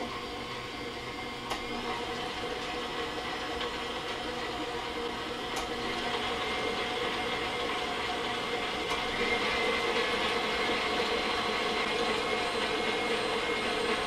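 Electric stand mixer running steadily, its motor humming as the beater creams butter, sugar, egg and milk in a stainless steel bowl, growing a little louder partway through, with a few faint ticks.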